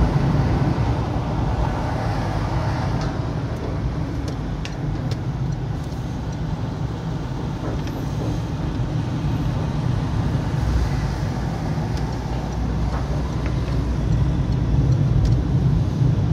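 A road vehicle driving: a steady low engine and tyre rumble, with a few faint clicks.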